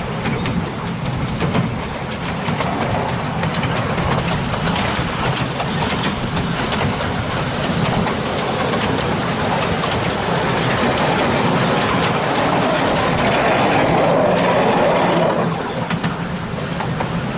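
7¼ inch gauge miniature railway train under way, heard from a passenger car behind its diesel locomotive: the engine runs steadily and the carriages click and rattle on the track. The sound swells for a few seconds near the end.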